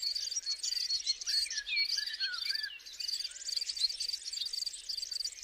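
Crickets chirping in steady, evenly pulsed high trills, with birds calling in short gliding chirps about a second in, for a couple of seconds.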